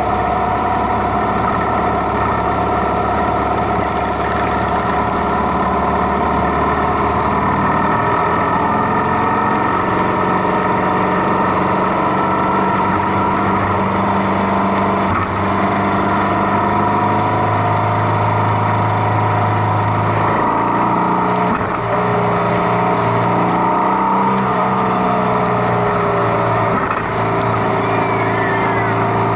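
Motorcycle engines running steadily, the engine note changing about 8 seconds in and again around 20 seconds in.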